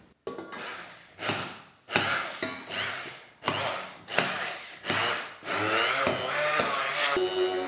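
Handheld immersion blender puréeing boiled potatoes in a stainless steel pot. It runs in about eight short pulses, each starting sharply and dying away as the motor winds down; the last run near the end is longer, and its motor pitch wavers.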